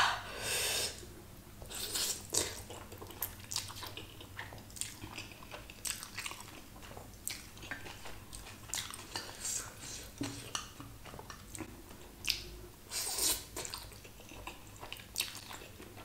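A person eating spicy black bean noodles: steady wet chewing and mouth noises, with a few louder mouthfuls near the start, at about two seconds and at about thirteen seconds.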